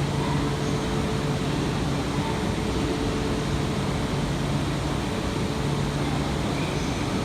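Steady mechanical hum of a train: a low drone and a few steady tones over an even rushing noise, unchanging throughout.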